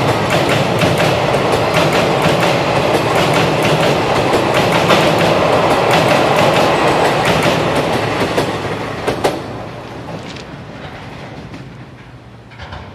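Passenger coaches rolling past with a clickety-clack of wheels over rail joints, over the steady drone of a WDP4D diesel locomotive's engine working hard as it accelerates away. The sound fades from about eight seconds in as the train pulls away.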